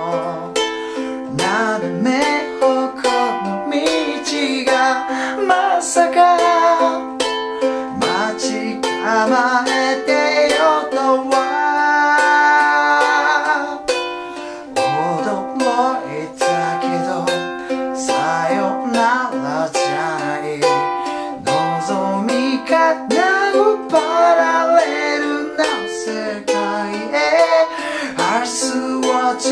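A man singing a Japanese pop song while strumming chords on a small ukulele in a steady rhythm. About twelve seconds in, he holds one long sung note.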